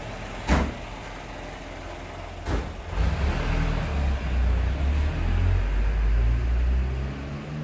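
Two sharp knocks, about half a second and two and a half seconds in, then a low vehicle engine rumble that swells about three seconds in and eases off near the end.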